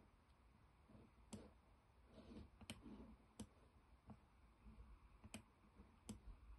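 Faint, irregularly spaced clicking, about six clicks, from the computer controls as the satellite map view is moved and zoomed.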